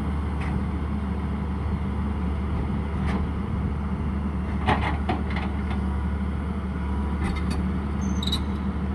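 Komatsu crawler excavator's diesel engine running steadily as the boom and bucket are raised, with a few short clicks and knocks over the engine drone.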